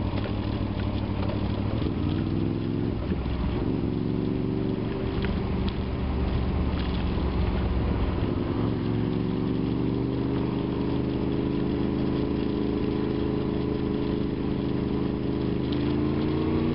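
Honda VFR motorcycle's V4 engine running under way, its revs rising and dropping a few times in the first few seconds, then climbing slowly and steadily as the bike picks up speed.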